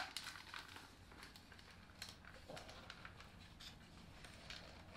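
Mostly near silence, with a sharp click at the start and then faint scattered clicks and rubbing from a plastic Hasbro Marvel Legends Iron Spider helmet being worked down over a head so that it expands to fit.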